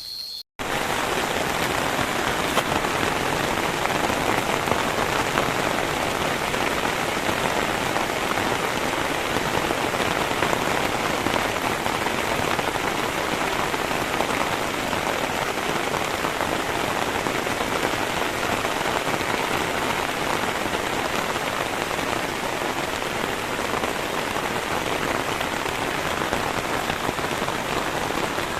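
Heavy rain falling steadily, a dense even hiss that starts abruptly after a momentary dropout about half a second in.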